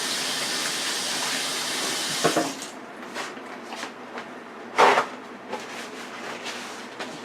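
Kitchen tap running in a steady stream while hands are washed under it, turned off about two and a half seconds in. Small clicks and knocks follow, with one louder knock about five seconds in.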